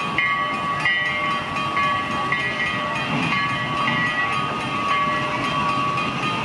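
The Glenbrook, a 2-6-0 narrow-gauge steam locomotive, running slowly while a bell rings in uneven strokes about once a second over a steady high ringing tone.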